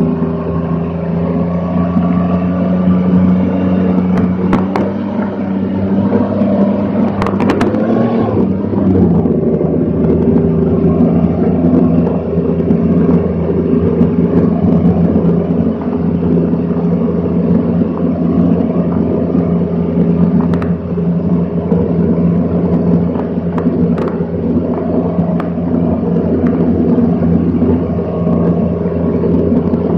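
M113A1-hulled Scorpion reconnaissance vehicle under way: its Detroit Diesel 6V53 engine and tracked running gear drone loudly and steadily. About seven to nine seconds in there are a few clanks and the engine note drops.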